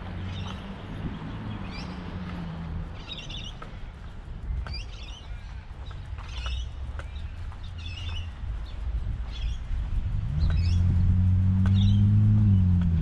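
Small birds chirping in short high calls, about one a second, over a low engine hum that grows clearly louder about ten seconds in.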